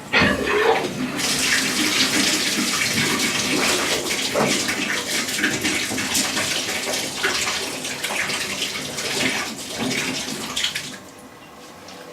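Toilet tank refilling through its fill valve after the water supply is turned back on: a steady rushing hiss of water that cuts off about eleven seconds in as the valve shuts.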